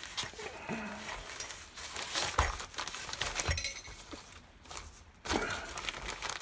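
A package being opened by hand: rustling and handling of the packaging, with a few knocks and light clinks.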